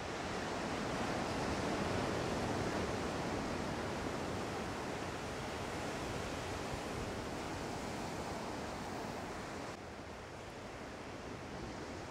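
Steady rushing noise of ocean surf. Its level drops suddenly about ten seconds in, then carries on more quietly.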